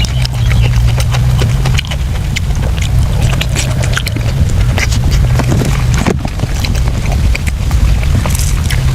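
Close-up chewing and lip-smacking of someone eating soft braised pork intestines, a run of irregular wet clicks, over a steady low hum.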